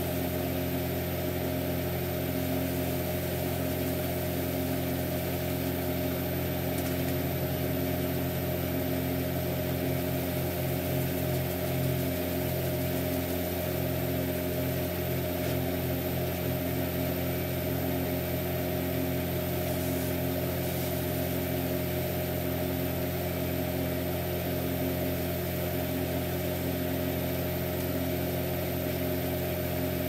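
Wood lathe running steadily at a slow speed, with a bowl turning on it: an even motor hum of several steady tones and a faint regular pulse.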